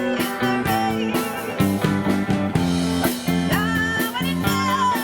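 Rock band music: guitars, bass and drums playing a steady beat, with a lead melody that bends in pitch.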